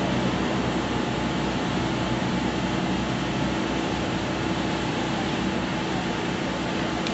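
Steady rushing background noise with a faint steady hum, even in level, with no clear voices or impacts standing out.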